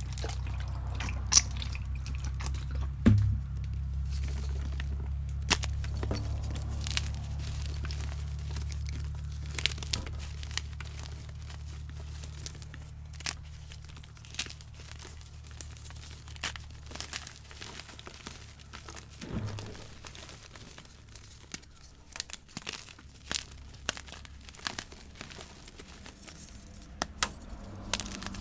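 Gym chalk being crushed by hand: scattered dry crunches and crumbling crackles, close up. A low hum underneath fades out about halfway through.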